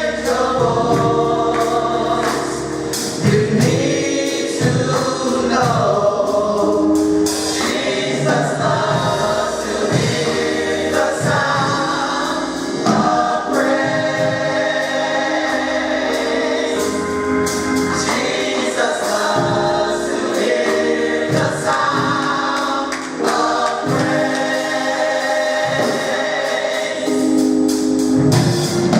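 Mass choir singing gospel music, many voices holding long, shifting chords over instrumental accompaniment.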